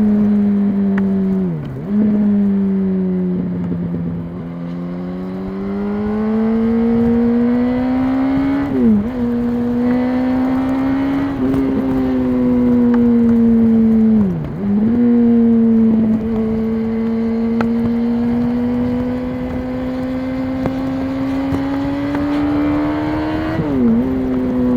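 2006 Yamaha R1's inline-four engine through its stock exhaust, heard from the rider while riding: the engine holds steady revs with slow rises in pitch, broken four times by a quick drop and recovery as the throttle closes and a gear changes.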